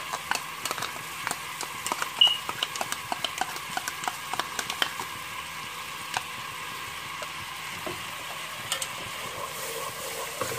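Onion-spice masala sizzling in a pot under fresh yogurt, a steady hiss with frequent small pops and clicks. A wooden spatula begins stirring near the end.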